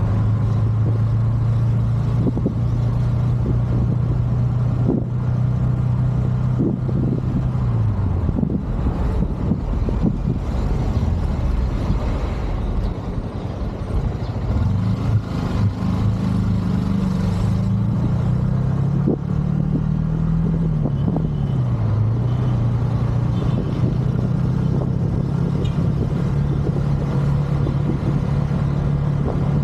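Motorcycle engine running as it rides along a street. Its note drops about eight seconds in as it slows, climbs again around fifteen seconds as it speeds up, dips briefly around twenty-one seconds, then holds steady.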